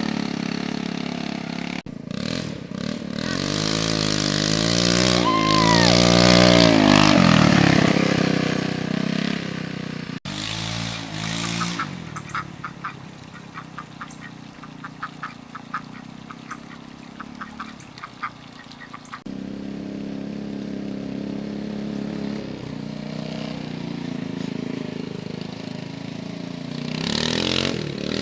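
Vehicle engine sounds across several cuts: an engine running with its pitch rising and falling for several seconds, then a run of short regular clicks, then a steady engine hum.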